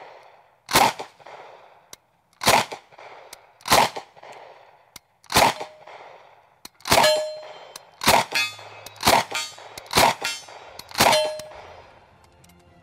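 Thompson M1A1 submachine gun in .45 ACP fired on semi-auto: about nine single shots, one every second or so, each with an echoing tail. A couple of hits set steel plate targets ringing.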